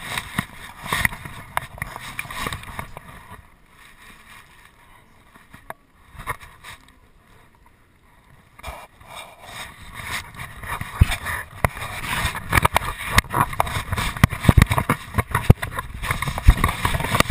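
Rubbing, scuffing and knocking of a GoPro HD2 strapped to a border terrier's back as the dog moves, the camera shifting against its fur and body. Quieter in the middle, then dense irregular knocks and scuffs over the last several seconds.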